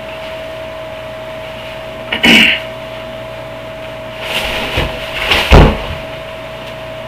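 A steady electrical hum, broken by a loud bang about two seconds in and a quick run of bangs and thumps between about four and six seconds, the last one the heaviest.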